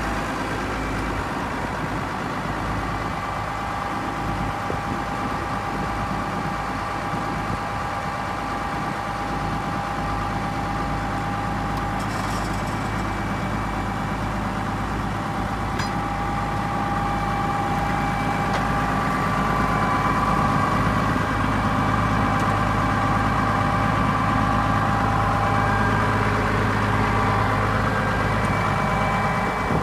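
Case IH 5140 Maxxum tractor's six-cylinder turbo diesel idling steadily, getting a little louder about two-thirds of the way through.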